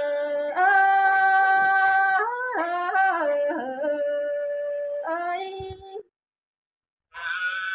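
A woman singing a Thái folk song in long held, wavering notes with sliding ornaments, heard through a phone's speaker; the singing breaks off completely about six seconds in and resumes about a second later.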